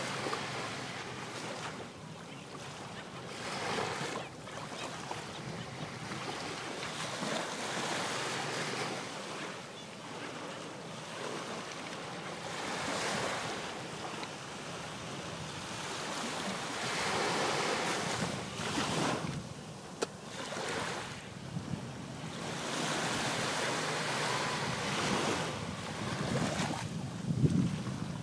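Small sea waves breaking and washing up the beach, swelling and fading every few seconds, with wind buffeting the microphone. A short low thump near the end.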